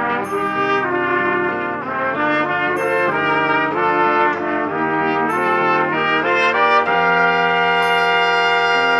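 Three trumpets playing a melody in three-part harmony, moving through a run of notes and settling on a long held chord near the end.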